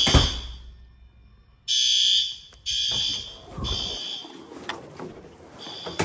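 Fire alarm horns sounding the evacuation signal: half-second blasts, three in a row about a second apart, then a pause, the temporal-three pattern. A few dull thumps come in between the blasts.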